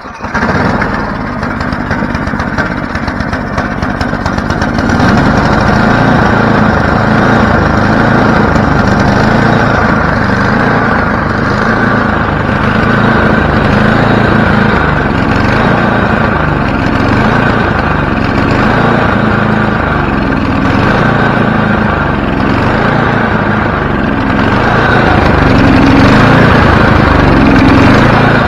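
Tecumseh single-cylinder four-stroke engine on a Toro 824 XL snowblower catching at once on a pull and running steadily, getting louder about five seconds in.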